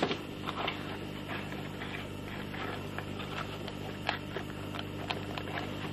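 Light clicks and crinkles of folded foil modules being handled and fitted together by hand, scattered irregularly over a steady low electrical hum.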